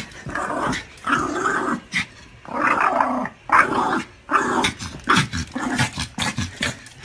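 A dog growling in a string of short, rough bursts, about seven in all.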